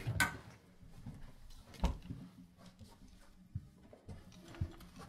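Handling noises as a fire extinguisher is taken up: a sharp clank right at the start, a heavier thud about two seconds in, then a few softer knocks.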